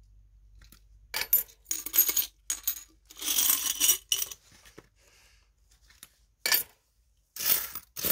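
Korean 500-won coins clinking and rattling against one another on a tabletop as they are handled and spread out, in several bursts: a dense run of clinks about three seconds in and shorter bursts near the end.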